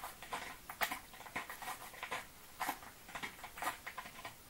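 A cat sharpening its claws: irregular scratchy strokes of claws raking a surface, roughly two a second.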